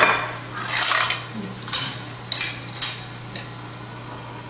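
Dishes, a glass and cutlery being handled and set down on a granite countertop: about half a dozen sharp clinks and knocks in the first three seconds.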